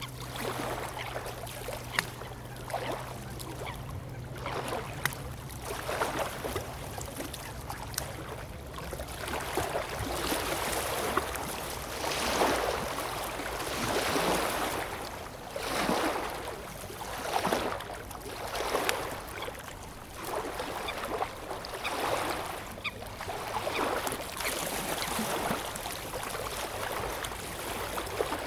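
Small lake waves lapping and splashing against the shore, a gentle wash that swells and falls back every one and a half to two seconds. A single sharp click sounds about two seconds in.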